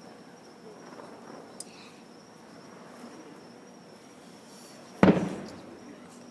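A firework shell bursts with one loud boom about five seconds in, its rumble trailing off over most of a second, after a small pop earlier on. Crickets keep up a steady high trill underneath.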